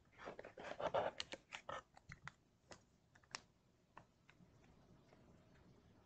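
Plastic lure packaging handled close to the microphone: a quick run of crinkling and clicking for about two seconds, then a few separate clicks, settling into faint room tone.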